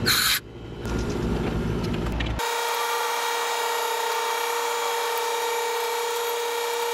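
A short, loud hiss of refrigerant escaping at the service port as the new valve core goes in, then the running condensing unit. About two seconds in, the sound changes abruptly to a steady high-pitched whine with no low end that holds to the end.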